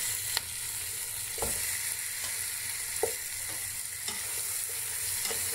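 Raw chicken pieces sizzling in hot oil with sautéed onion, tomato and garlic in a pan, a steady frying hiss with about five light knocks as pieces go in against the pan.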